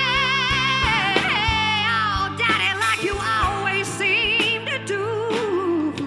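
Female lead vocalist belting a long wordless wail with wide vibrato over a live rock band with drums. The voice slides down in pitch near the end.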